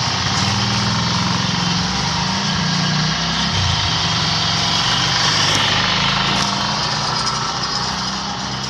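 Electric concrete block press machine running, its electric motor giving a steady mechanical hum and rattle.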